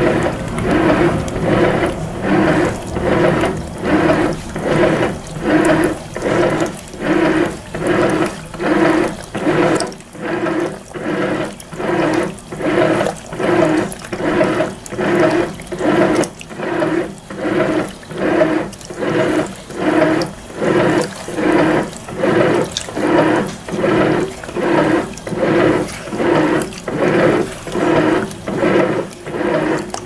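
Brastemp Eggo 1 kg mini washer agitating a load of tablecloths in its final rinse. The water sloshes in regular surges, a little more than one a second.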